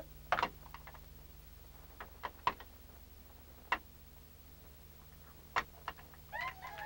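Scattered small clicks and knocks of objects being handled on a floor, a few at a time with pauses between, over a faint steady hum. Some wavering pitched tones begin near the end.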